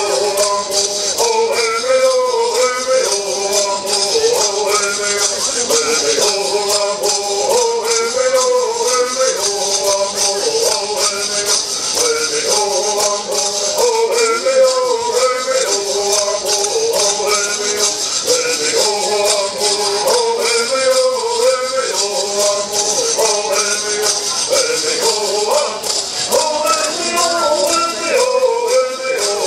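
Bird singers chanting a repeating bird song to the steady, unbroken shaking of gourd rattles.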